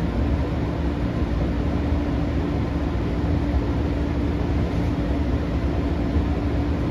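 Interior running noise of a JR Nambu Branch Line 205-series electric train under way: a steady low rumble of wheels on rail with a constant hum.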